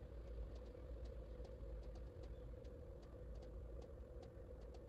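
Faint steady low hum with light, irregular ticks scattered through it.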